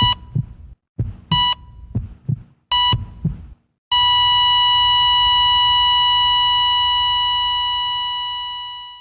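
Heart-monitor sound effect: three electronic beeps about one and a half seconds apart, each over a low double-thump heartbeat. About four seconds in, a continuous flatline tone at the same pitch starts and slowly fades out, the flatline that signals the heart has stopped.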